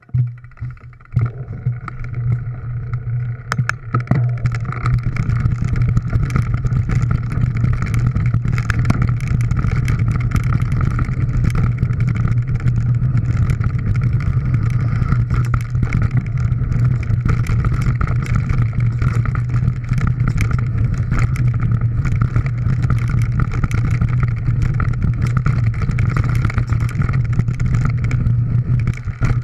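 Mountain bike riding down a dirt and stony forest trail, heard from a handlebar-mounted action camera: a steady low rumble of wind and tyre vibration, starting about a second in, with many clicks and rattles as the bike runs over rough ground.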